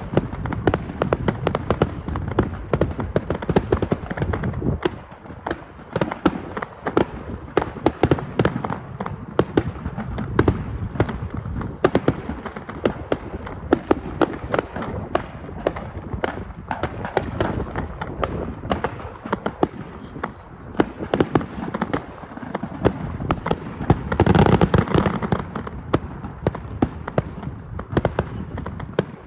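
New Year's Eve fireworks display: a dense, continuous run of bangs and crackling bursts, with a louder swell of booming near the end.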